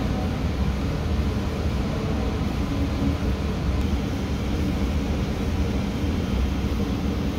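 Steady low background rumble, even in level, with no distinct knocks or strokes.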